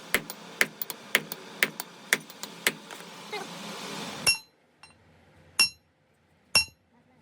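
Hammer blows on steel, about two a second, over a steady machine hum. The hum cuts off about four seconds in, and three louder, ringing metal strikes follow.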